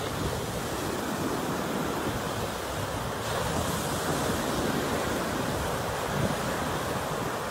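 Ocean surf breaking and washing up a sandy beach: a continuous rushing of water, with the hiss of the foam growing brighter about three seconds in.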